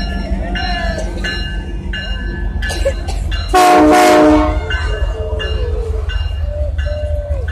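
Canadian Pacific Holiday Train passing with a steady low rumble, a bell ringing over and over. About three and a half seconds in, a locomotive horn gives one short blast of about a second, the loudest sound.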